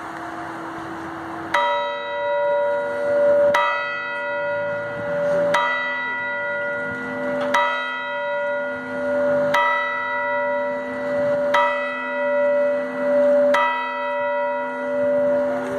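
A church tower bell cast in 1891 tolling: seven strokes about two seconds apart, starting about a second and a half in, each one ringing on into the next.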